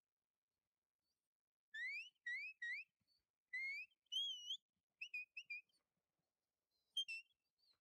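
Sheepdog handler's whistle commands to a working kelpie: three short rising whistles, then a longer rising, warbling whistle about four seconds in, a few short clipped notes, and two sharp notes near the end.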